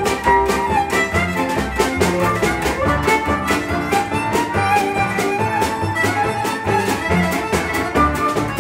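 A small acoustic band playing a dance tune: violin leading the melody over accordion, piano and upright double bass, with drums keeping a steady beat.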